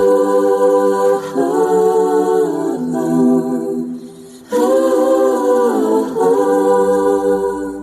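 Wordless a cappella vocal harmonies: several layered voices holding sustained chords in two long phrases, with a short dip about four seconds in.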